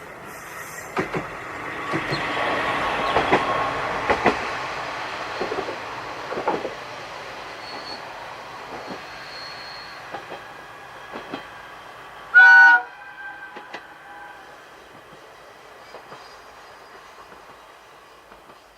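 KiHa 120 diesel railcar passing, its wheels clacking over rail joints as the sound rises and then fades away. About twelve seconds in comes one short, loud horn blast.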